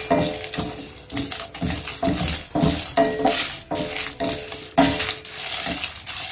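A wooden spatula stirs whole spices (coriander seeds, peppercorns, cumin, fennel and dried red chillies) being dry-roasted in a stainless steel pan. The seeds scrape and rattle against the metal about twice a second, and the pan rings briefly at each stroke.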